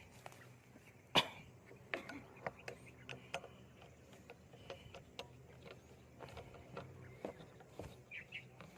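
Irregular light clicks and knocks, the loudest about a second in, from tools and metal parts being handled while a wrench is searched for; no engine is running.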